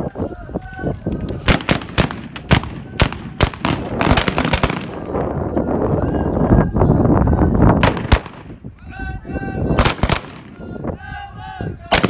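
Celebratory gunfire: irregular shots fired into the air, some single and some in quick runs, each ringing out briefly. Men's voices chant between and under the shots, most clearly in the last few seconds.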